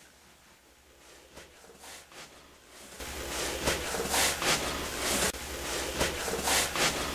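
Amplified audio-recorder hiss that comes in loud about three seconds in, with a quick run of rasping, breathy bursts, presented as an EVP: a spirit voice saying "we are here". Before it, only faint room noise with a few light ticks.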